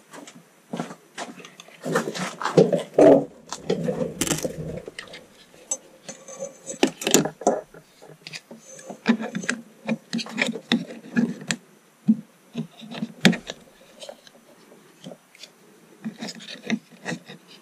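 Hands handling and fitting hard plastic 3D-printed fan duct parts and a small blower fan on a 3D printer's print head: a run of irregular clicks, taps and rubbing, busiest a couple of seconds in.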